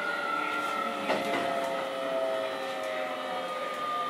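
Keio 7000-series electric train running, heard inside the car: traction motors whining with several steady tones that fall slowly in pitch as the train slows, over rumble from the wheels. There is a single sharp clack about a second in.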